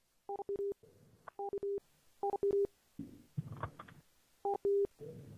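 Softphone call tones repeating in quick succession: groups of short electronic beeps, a high blip then lower tones, about once a second, with brief bursts of line noise between them, as calls connect and are ended by the other party.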